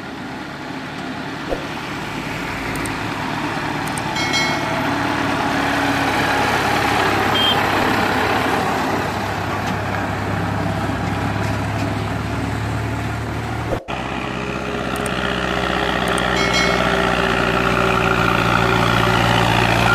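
Diesel tractor engines running under load as they pull fully loaded sugarcane trolleys past, the sound growing louder as a tractor approaches and passes. It breaks off abruptly about two-thirds of the way through, then another tractor's engine grows louder as it approaches near the end.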